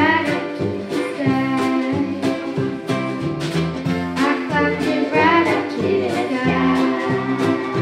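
A young girl singing a slow song into a microphone, accompanied by a strummed ukulele.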